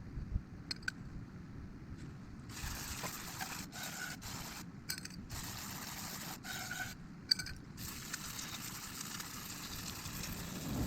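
Hand work on motorcycle front fork parts: a few light metallic clicks, then about eight seconds of scraping and rubbing that stops and starts, with one sharp knock midway.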